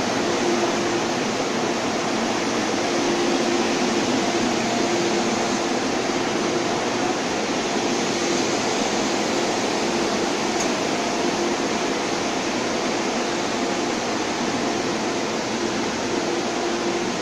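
Steady air-conditioning and ventilation noise beside a metro train standing with its doors open in an underground station: an even hiss with a faint low hum running under it.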